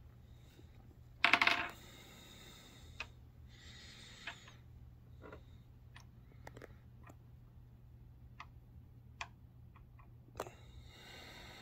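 Empty .300 Blackout brass cases clinking against each other and being set down on a wooden tabletop. There is one loud ringing clink about a second in, followed by a scattering of lighter ticks and taps.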